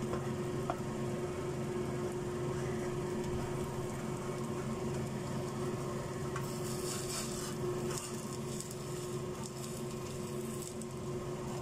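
Egg, potato and rice pancake sizzling in oil in a frying pan, with a spatula scraping under it about halfway through, over a steady low hum.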